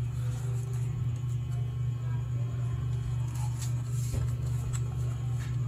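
Steady low hum with a few faint clicks and taps of a plastic laptop casing being handled and turned over, mostly in the second half.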